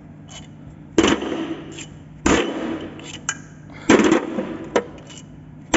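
Loosened cylinder-head bolts being pulled out of a diesel engine and dropped. There are three loud clanks about a second and a half apart, with lighter clicks in between.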